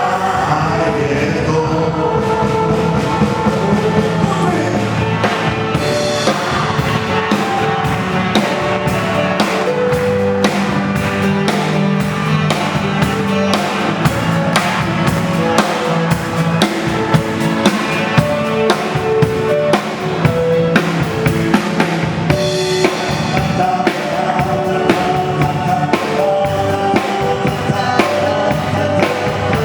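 Instrumental music with a steady drum-kit beat, bass drum and held notes, without words.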